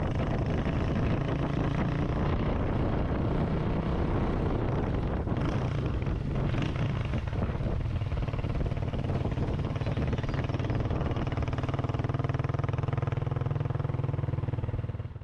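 Motorcycle engine running while riding, under heavy low rumble from wind on the microphone. The engine note settles into a steady hum over the last few seconds, then the sound cuts off abruptly.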